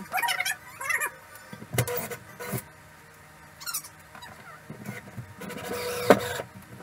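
Cordless drill driving screws into a timber wall frame in short stop-start bursts, with high squeals that bend in pitch and a few sharp knocks, and a longer steady run near the end; the drill's battery is running flat.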